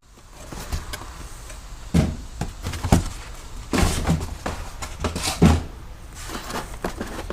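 Several dull thumps and knocks, with some rustling in between, from things being handled and set down.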